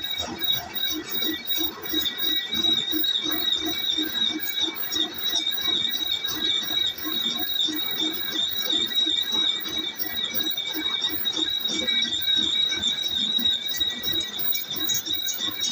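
Metal lathe cutting an iron workpiece: the cutting tool gives a steady high-pitched squeal that wavers rhythmically, over a lower, evenly pulsing machine sound.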